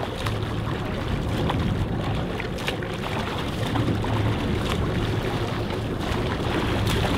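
Escort boat's engine running with a steady low drone, mixed with sea wash and wind on the microphone and a few light knocks.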